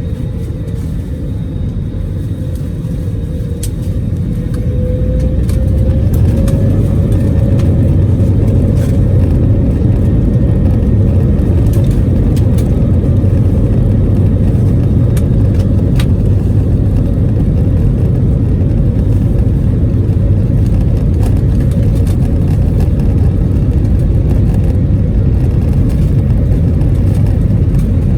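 A steady low rumble that grows louder about four to six seconds in, with a faint tone rising in pitch as it builds, then holds steady.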